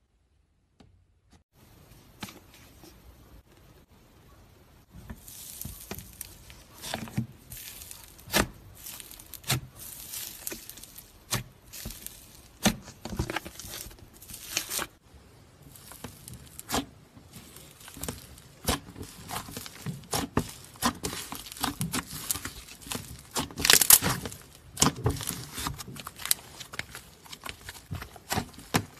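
Slime being squished and stretched by hand, giving a continuous crackling with many irregular sharp pops. It starts about a second and a half in, and the loudest pops come near the end.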